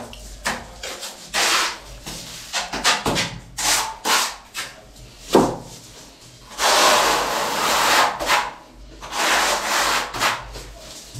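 Steel notched trowel scraping tile adhesive mortar across a concrete wall in a series of strokes, some short and a couple of longer ones in the second half, combing the adhesive bed for a large porcelain tile.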